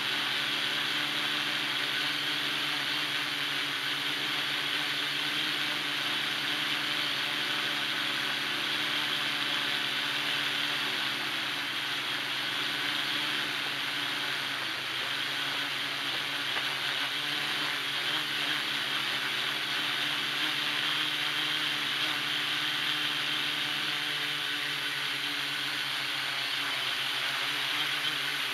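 Hexacopter's electric motors and propellers whirring steadily in flight, heard close up from the airframe, with a hum of several steady tones over a high hiss.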